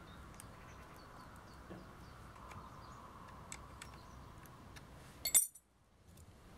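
Light clicks and clinks of a bare copper wire being worked against metal battery terminals. About five seconds in comes a short, loud cluster of sharp clicks, then the sound cuts off suddenly for a moment.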